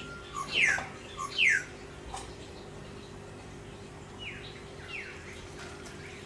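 A bird singing: a phrase of quick falling whistled notes, the loudest near the start, repeated about four seconds later, over a steady low hum.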